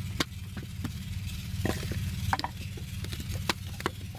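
Wet clay being slapped and pressed by hand into wooden brick moulds: wet squishing with several sharp slaps and knocks, over a steady low hum.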